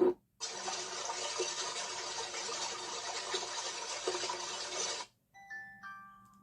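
A wake-up light alarm clock's built-in speaker playing one of its sleep sounds, a steady rushing noise, which cuts off suddenly about five seconds in. A few short electronic chime notes follow near the end.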